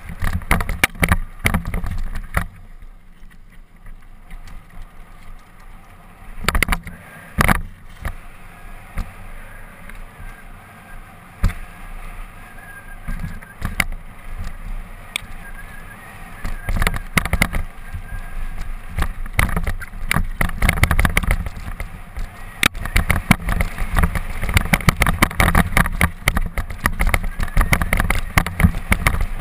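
Mountain bike descending a dirt singletrack, heard through the bike rider's action camera: a low rumble of tyres and wind on the microphone, with a steady run of knocks and rattles from the bike over roots and stones. It eases off for a few seconds early on and grows busier and louder in the last third.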